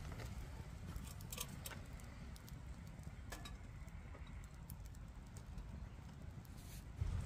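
Small wood fire crackling in a Lixada folding twig-burning stove, with a few light metallic clinks and rattles as a stainless steel pot hanging from its wire bail handle is set down on the stove.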